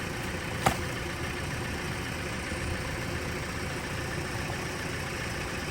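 Car engine idling steadily, with a single sharp click about two-thirds of a second in.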